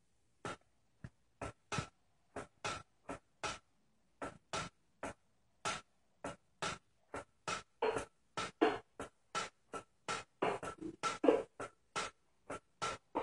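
Window blind slats clicking and clacking as a cat's paw flicks them back and forth: a long run of sharp single clicks, about two or three a second, crowding together into a quick flurry a little past the middle.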